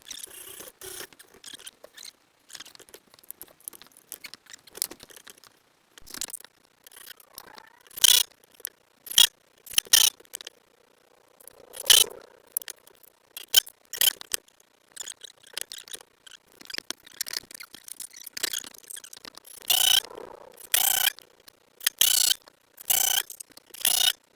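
Short, repeated mechanical bursts of tool work on the grinder's wooden stand, irregular at first and then louder, coming about once a second near the end.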